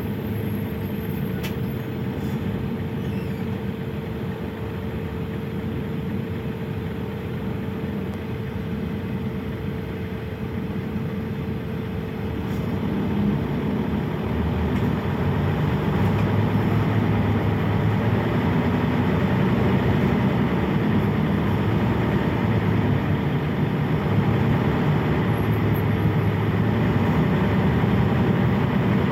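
Mercedes-Benz O 405 city bus heard from the passenger cabin, its straight-six diesel running steadily with a thin steady whine. About halfway through, the engine grows louder and holds there as the bus pulls away and gathers speed.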